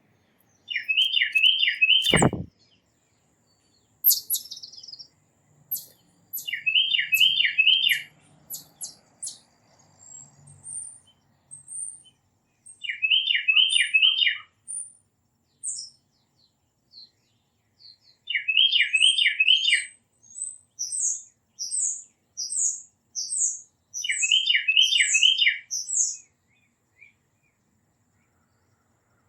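Tufted titmouse singing five times, each phrase a quick run of about four clear downslurred whistles, with high thin chips from other birds in between. A single sharp click about two seconds in.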